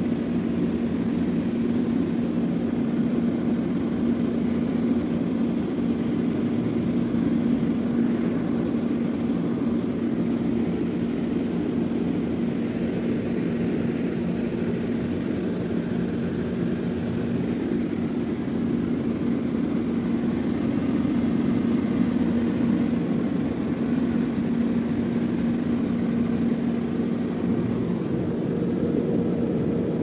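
Refrigerator compressor running with a steady hum and a constant low tone.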